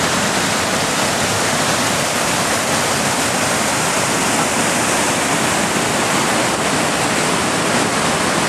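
Whitewater rapids of an artificial slalom canoe course rushing steadily, water pouring over the course's drops. A loud, even rush with no breaks.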